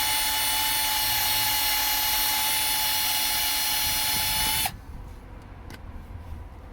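Electric drill spinning a flap wheel against an aluminium suspension hub, sanding overspray and corrosion out of the shock absorber bore: a steady whine over a grinding hiss. It stops suddenly about four and a half seconds in.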